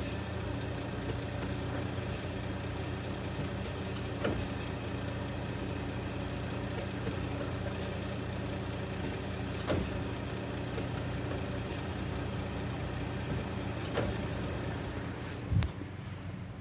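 Car engine idling steadily, with a few short knocks and a heavier low thump near the end: the clunk and shock of the transmission engaging reverse, which happens only when shifting into R.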